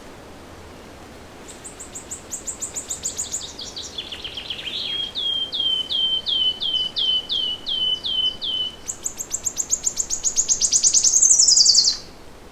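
A songbird singing a long song: a fast run of high notes, then a slower series of slurred downward notes about two a second, then a fast high trill that grows louder and stops abruptly near the end.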